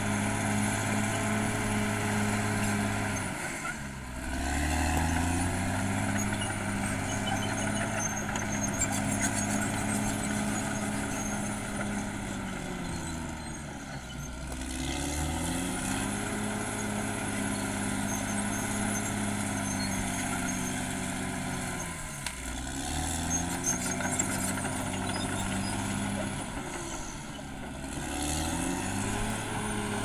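Caterpillar D6R XL crawler bulldozer's diesel engine running hard as it pushes earth. Its note drops in pitch and climbs back up four times.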